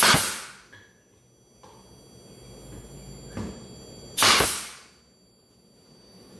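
Pneumatic nail gun firing twice into a baseboard, about four seconds apart; each shot is a sharp crack that trails off in a brief hiss.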